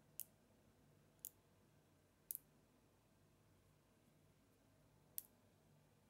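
5 mm magnet balls clicking sharply as they snap onto one another one at a time: four clicks spread out, the third a quick double click.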